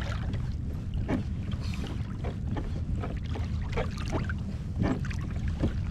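Steady low wind rumble on the microphone out on open water, with a couple of faint, brief voice sounds in the distance.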